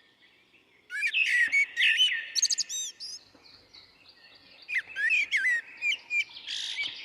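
Birds chirping and calling: quick chirps, trills and rising whistles in two bursts, starting about a second in and again past the middle, ending with a harsher raspy note.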